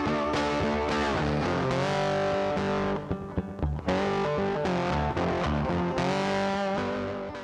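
Background music: distorted electric guitar holding long notes that slide up and down, over a bass line. About three seconds in it breaks into shorter, choppier notes for a second before the held notes return. It fades near the end.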